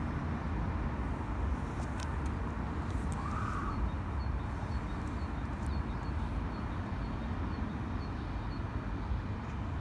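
Outdoor urban ambience: a steady low rumble of distant traffic, with a brief faint tone about three seconds in.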